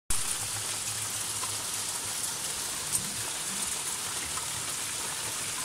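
A little hail mixed with rain falling on roofs and a yard: a steady hiss with scattered faint ticks and one sharper click about three seconds in.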